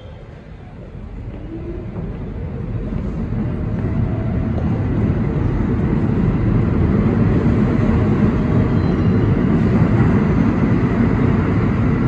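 New York City subway train departing the station, its wheel and motor rumble growing steadily louder over the first six seconds or so as it gathers speed, then holding loud as the cars run out of the platform. A thin steady high tone rides over the rumble in the second half.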